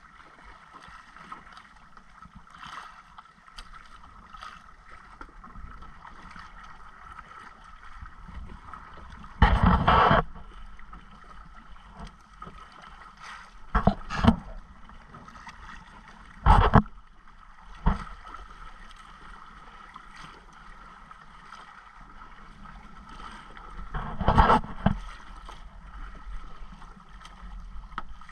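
Sea water sloshing and splashing against a small outrigger boat's hull and outrigger float on choppy water. Several short, loud splashes stand out: one about a third of the way in, a few more through the middle, and one near the end.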